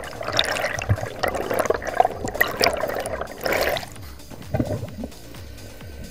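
Bubbling and rushing water around an underwater camera as a freediver rises to the surface, in a run of noisy bursts that stops about four seconds in, with one short burst just after.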